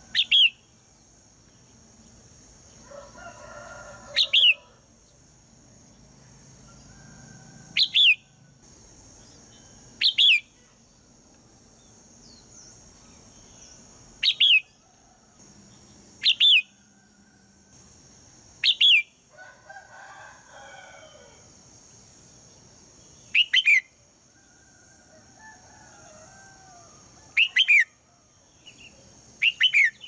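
Red-whiskered bulbul giving about ten short, sharp calls, each a quick falling note, every two to five seconds, with fainter chattering notes in between. These are a female's morning calls, meant to set a male singing loudly. A steady high hiss runs underneath.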